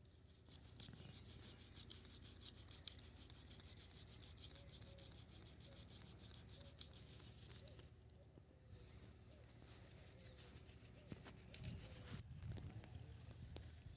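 A knife blade scraping the scales off a rohu fish, in a rapid run of faint rasping strokes. The scraping stops briefly about two-thirds of the way through, then starts again more sparsely.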